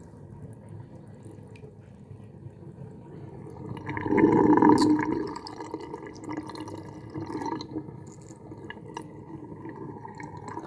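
Water from a filled bathroom sink draining away, a steady gurgling flow with ringing tones that swells loudest about four seconds in.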